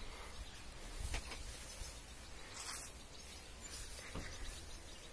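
Faint outdoor ambience: low wind rumble on the microphone, with a few faint high-pitched chirps.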